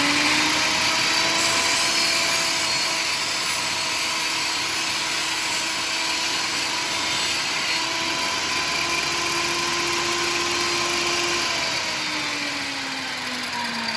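Electric power saw running through wood, a steady whine over a noisy rasp; its pitch sags briefly about halfway and slowly falls in the last few seconds.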